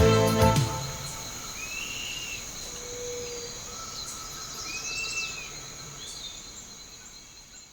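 Steady high trilling of insects, with a bird giving two short slurred whistles a few seconds apart. A music chord dies away at the start, and the whole sound fades out near the end.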